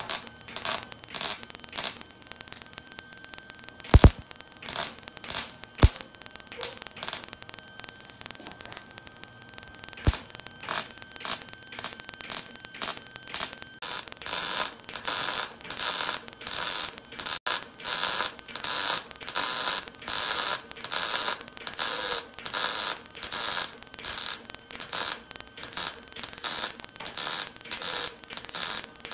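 Wire-feed welder arc crackling and sputtering in short stop-start bursts, stitch-welding steel on a car chassis rail and crossmember. About halfway through the bursts get louder and come in a quick, even series, with a few sharp clicks in the quieter first half.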